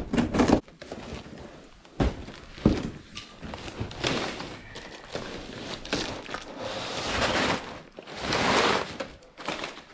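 A cardboard shipping box knocks a few times as it is handled and laid down on concrete. Then the box is opened and brown packing paper is pulled out and crumpled in several rustling spells.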